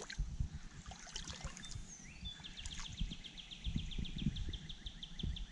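Creek water sloshing and lapping gently around a man wading waist-deep while he holds a large alligator gar, with an uneven low rumble. From about two and a half seconds in, a rapid high trill of about eight pulses a second runs behind it.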